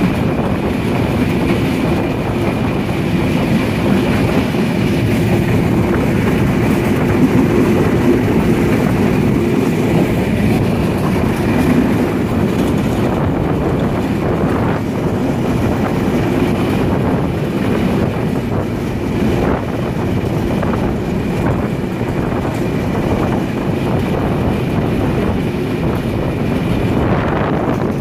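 Passenger train running at speed, heard from an open coach window: a steady rumble of wheels on the rails with wind noise, and sharp clicks over rail joints in the second half.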